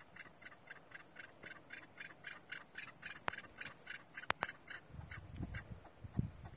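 Chukar partridge calling, a fast, even run of short 'chuk' notes at about four a second that thins out near the end. A few sharp clicks come about three and four seconds in, and there are low thumps near the end.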